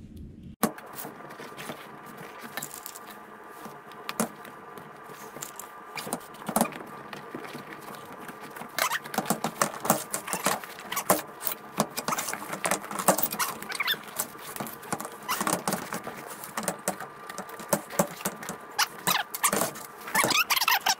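Hands working a replacement cover onto a car seat back: irregular clicks, rattles and rustling of fabric, plastic clips and the metal seat frame, busier in the second half, over a faint steady hum.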